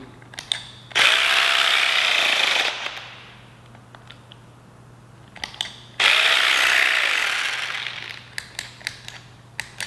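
Jigsaw (Vybe) massage gun at top speed, its percussive motor hammering in two short bursts of about two seconds each, each winding down and stopping, with clicks in between. It keeps cutting out, which the owner suspects is a flat battery.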